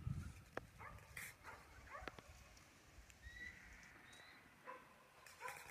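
Faint, distant yaps from a young kelpie working cattle: a few short barks spread through, with a low thump right at the start.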